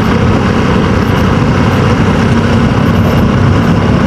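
A motor vehicle running steadily, a loud low rumble with a constant noisy hiss over it and a faint steady hum coming in about halfway through.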